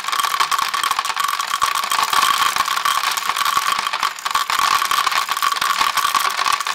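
Dry chickpeas raining down onto a table, a dense rattle of many small clicks over a steady hum.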